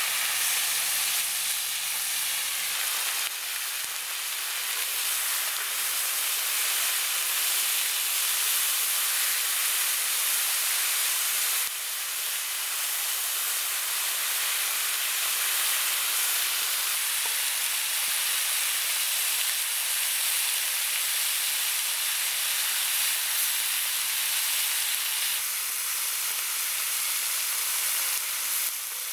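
Freshly added raw meat sizzling and frying on a hot steel cooking disc, a steady hiss of fat and moisture spitting off the metal.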